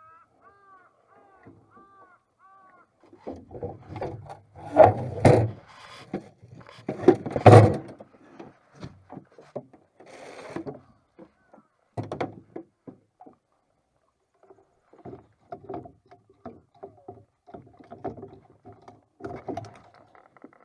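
Wooden knocks and clunks of gear being moved and set down on a small wooden boat, with two heavy thumps about five and seven and a half seconds in. A run of five short high squeaks comes just before them.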